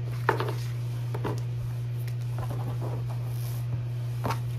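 Paper die-cut stickers being handled and slid into a sheer organza drawstring pouch, making a few soft rustles and light taps over a steady low hum.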